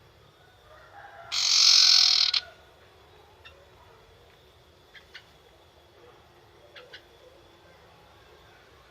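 Young wild sirtu bird calling: a loud, harsh rasping chatter lasting about a second just over a second in, then a few short, sharp chip notes spread out afterwards.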